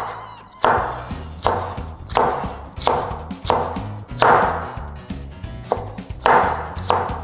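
Kitchen knife dicing a bell pepper on a cutting board: a steady run of about ten chopping strokes, roughly one every two-thirds of a second.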